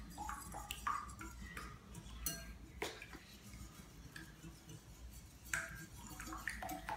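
Metal wire whisk beating raw eggs in a ceramic bowl: irregular clinks and taps of the wires against the bowl's side.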